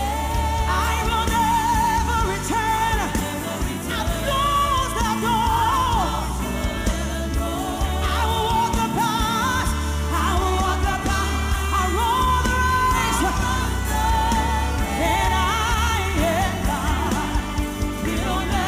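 Live gospel worship music: several vocalists singing held, wavering notes into microphones over a band with drums and a strong bass.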